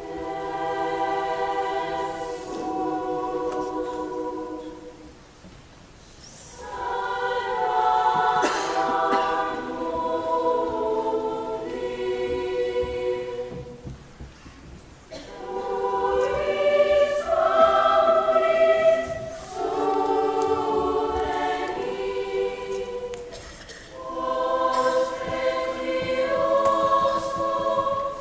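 Children's and youth choir singing a sacred choral piece, in long sung phrases with brief breaks between them.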